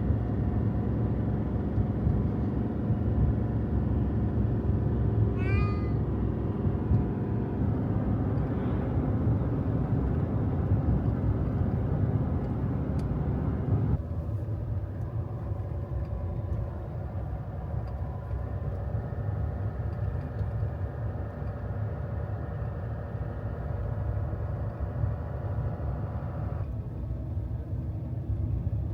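Steady engine and road noise inside a moving vehicle, with a cat meowing briefly about six seconds in. The drone eases slightly in level about halfway through.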